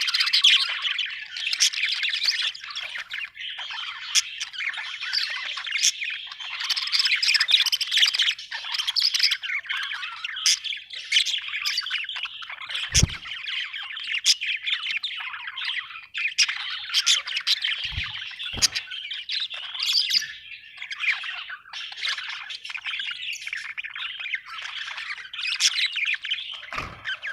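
Budgerigars chirping and chattering without a break, with sharp chirps over a busy warble. A few short dull thumps come about halfway through, twice more a little later, and near the end.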